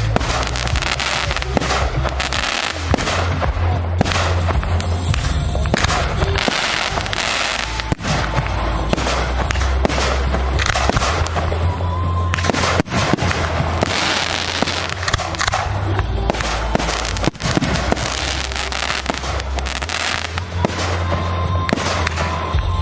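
Aerial fireworks shells bursting in quick succession, a near-continuous run of bangs and crackles with a few sharper reports standing out.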